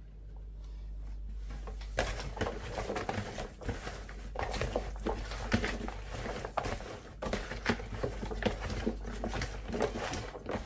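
Hands working seasoning into raw chicken pieces in a bowl: a continuous run of irregular wet squelches, rustles and small clicks, starting about two seconds in.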